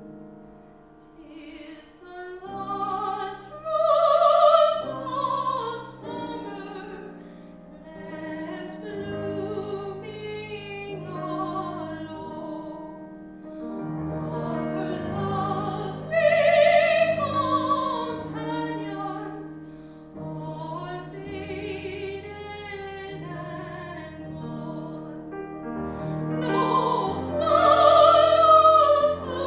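Classical singer performing with piano accompaniment, the voice sung operatically with a wide vibrato. The voice swells to loud held high notes three times, about 4, 16 and 28 seconds in.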